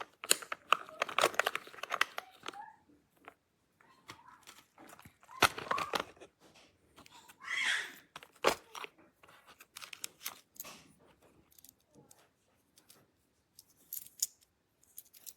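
Packaging rustling and crinkling as kit pieces are handled, with scattered small taps and clicks; one longer crinkle or tear about eight seconds in.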